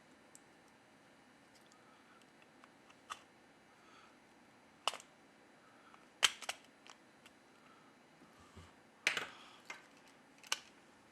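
Faint, sparse small clicks and taps of hand repair tools against a smartphone's parts during disassembly, coming every second or two.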